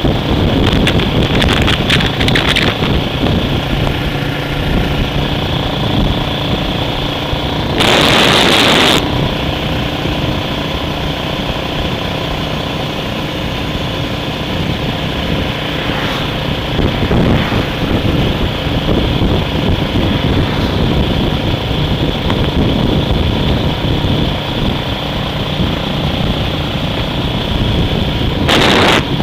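A vehicle's engine running steadily under road and wind noise, as heard while travelling in or on it. Two short loud bursts of hiss break in, about eight seconds in and again near the end.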